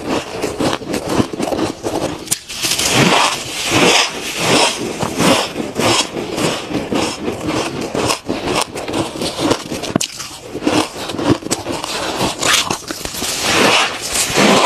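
Close-miked chewing of mouthfuls of soft, powdery freezer frost ice: a dense run of quick, crunchy, squeaky bites.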